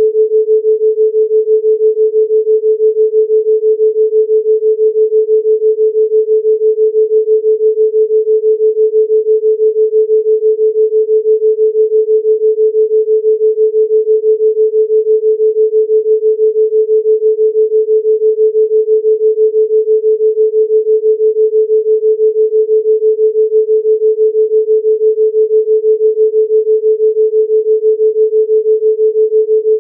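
Pure 432 Hz sine tone held steadily, its loudness pulsing evenly several times a second: a theta-rate beat.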